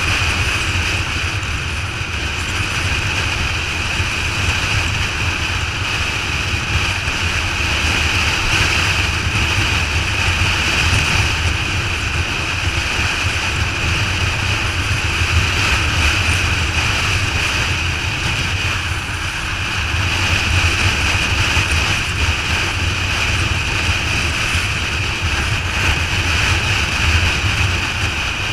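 Steady wind rush over the microphone of a motorcycle cruising at freeway speed, over the constant low drone of its engine and road noise.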